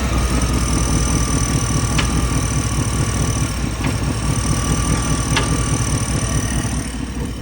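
OBS-body Chevrolet truck's engine running steadily, with three light clicks spread a second or two apart.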